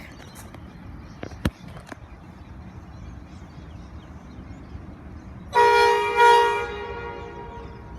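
Diesel freight locomotive horn sounding two blasts about five and a half seconds in, the second trailing off, from an approaching train led by an NR class locomotive. Before it only a faint low rumble with a few light clicks.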